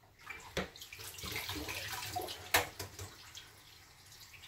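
Kitchen tap running water into a sink for about two and a half seconds, with a sharp knock partway through, then quieter.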